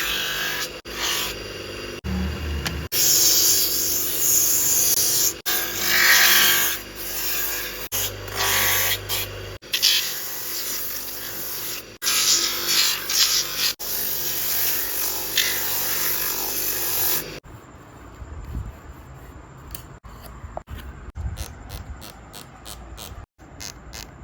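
A small handheld power tool running against the work in several short cut-together clips, with a steady hissing, grinding noise. After a sudden cut it gives way to a quieter run of short scraping or brushing strokes, a few a second.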